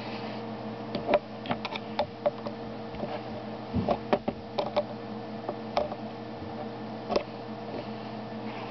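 Scattered plastic clicks and light knocks, with a cluster in the middle, as a small white plastic mechanism is handled and the pin on its side is pushed with a metal tool. A steady low hum sits underneath.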